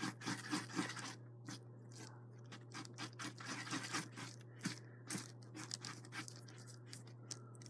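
Stirring stick mixing glue and shaving cream: quick, irregular, faint scraping strokes, over a low steady hum.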